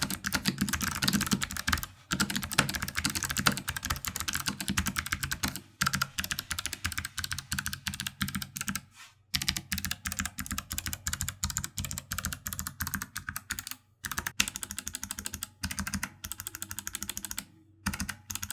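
Fast typing on a low-profile mechanical keyboard with Kailh PG1350 clicky blue switches, dense runs of sharp key clicks broken by a few short pauses.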